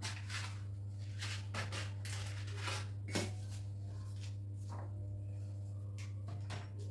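Small steel bowls and utensils being handled on a kitchen counter, giving a few light taps and clinks at irregular moments, over a steady low hum.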